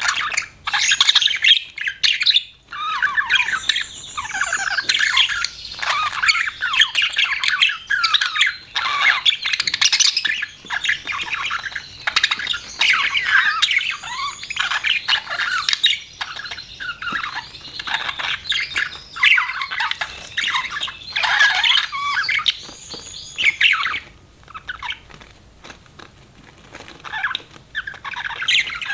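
Budgerigars chirping and warbling in rapid, near-continuous chatter with sharper squawks mixed in, easing off for a few seconds near the end.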